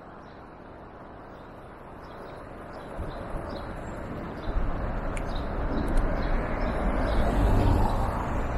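Outdoor street noise with a few faint bird chirps, then a low wind rumble on the microphone that builds from about halfway through and keeps growing louder.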